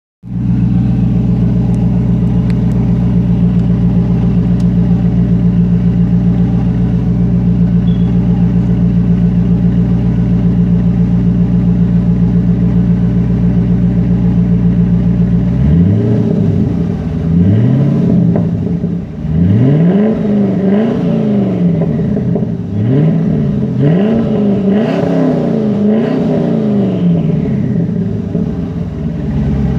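Twin-turbocharged 2001 Corvette Z06's LS6 V8 idling steadily. About halfway through it is blipped in a string of about six quick revs that rise and fall, with turbo whistle on the revs.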